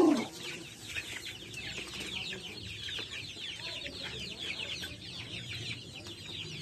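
A flock of young Rhode Island Red chickens cheeping together: many short, high calls that slide down in pitch, overlapping several to the second without a break.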